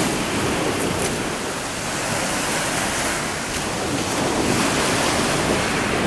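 Ocean surf breaking and washing up a pebbly beach, a steady rushing, with wind buffeting the microphone.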